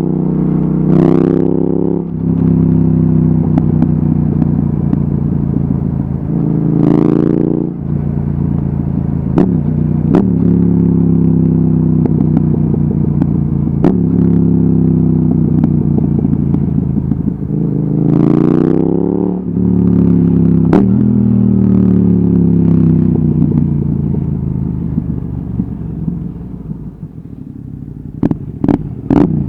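Yamaha XSR700's parallel-twin engine through an Akrapovic exhaust while riding: it revs up hard and drops suddenly at each upshift, with long stretches of falling revs as the bike slows. Near the end it goes quieter, with a few sharp cracks.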